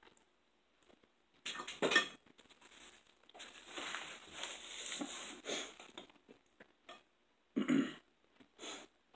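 Forks and knives clinking and scraping on dinner plates while food is cut and eaten, in short bursts with quiet gaps between and a longer noisy stretch around the middle.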